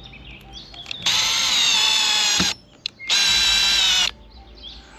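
Power drill running in two bursts with a steady high whine, the first about a second and a half long, the second about a second.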